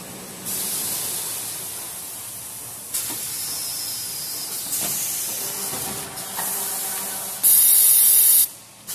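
Compressed air hissing from the pneumatic parts of a semi-automatic toilet paper roll bagging machine, in a run of long hisses. The last and loudest is a strong blast about a second long near the end.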